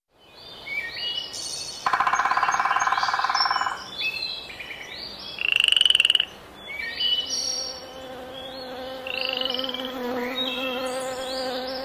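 Cartoon meadow sound effects: many short high chirps, a pulsing croak-like buzz about two seconds in, and a loud, short buzzy trill near six seconds. A steady low hum of a flying insect runs through the second half.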